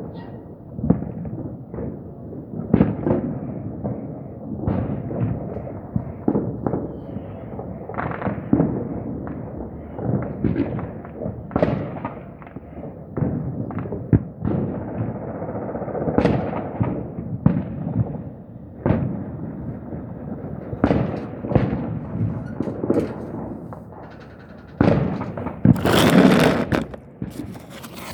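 Irregular series of sharp, echoing bangs and pops, some coming in quick clusters, with a louder, dense run of cracks near the end.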